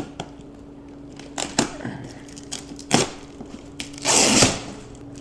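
Cardboard snowplow shipping box being handled: a few sharp knocks and clicks, then a short scraping, tearing rustle about four seconds in.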